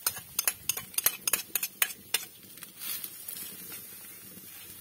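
A utensil clinking and scraping against a dish and the pot as chopped onion and garlic are tipped in. It makes a quick run of sharp clinks over the first two seconds, then a short soft rustle about three seconds in.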